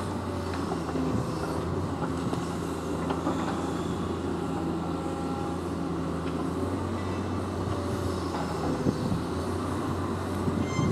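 Liebherr demolition excavator's diesel engine running steadily under hydraulic load, with a few scattered knocks of debris breaking as its crusher jaws work the wall.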